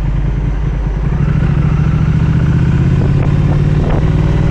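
Triumph Speed Twin 1200's parallel-twin engine running under way, getting louder about a second in as the throttle opens, then holding a steady note.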